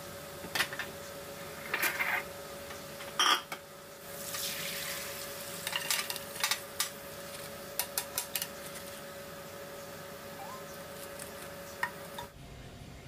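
Cookware handling while pork ribs deep-fry in oil. A wooden spatula knocks and scrapes against the pan, and a rushing sizzle of hot oil comes a few seconds in. The fried ribs then clatter into a metal mesh strainer in a run of quick clicks, over a steady hum that stops near the end.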